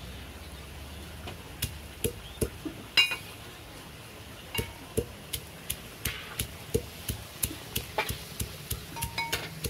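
A pestle pounding inside a metal tin used as a mortar, giving sharp knocks against the tin. The knocks are spaced at first, then come steadily at about three a second from about halfway.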